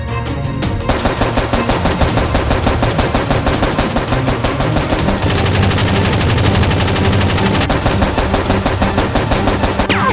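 Rapid automatic gunfire sound effects: dense, fast bursts of shots starting about a second in and continuing steadily.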